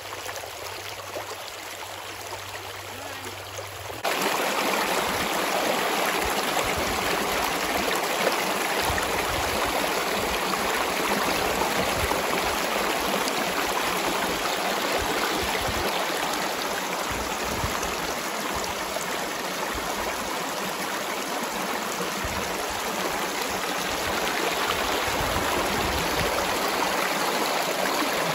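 Shallow river water running and splashing over rocks in a small riffle. It is quieter for the first four seconds, then steps up to a louder, fuller rush that holds steady.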